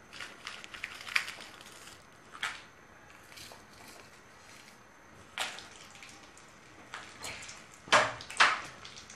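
Dried red chillies and then garlic cloves dropped into a little hot groundnut oil in a kadai: scattered light taps and soft crackles, with two louder knocks near the end.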